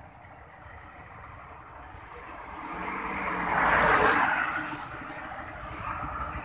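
A car driving past close by, its road and engine noise swelling to a peak about four seconds in, then fading as it moves off down the road.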